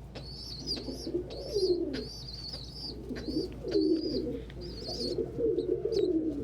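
Pigeons cooing over and over, with baby pigeons peeping in short, high squeaks above the coos.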